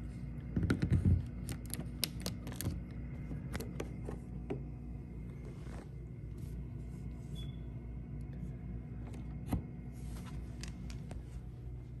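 Handling noise: a cluster of clicks and knocks in the first few seconds, the loudest with a dull thump about a second in, then a few scattered clicks over a faint steady hum.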